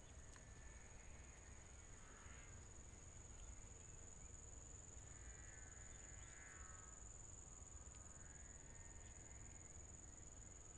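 Near silence outdoors, with a steady high-pitched insect drone from crickets running throughout.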